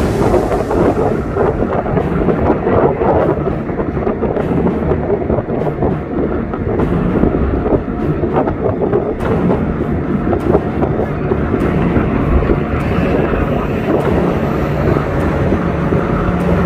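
Racing boat engines running, a loud steady rumble with no clear breaks.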